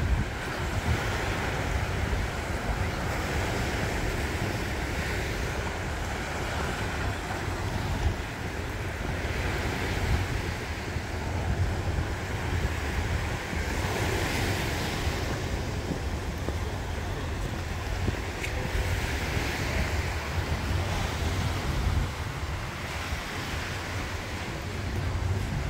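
Small waves breaking and washing up a sandy beach, swelling and fading every few seconds, with steady wind rumble on the microphone underneath.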